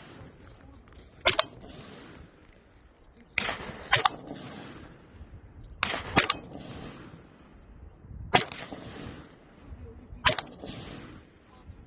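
Gunshots fired one at a time, about seven of them at irregular intervals a second or two apart, each followed by a short echoing tail.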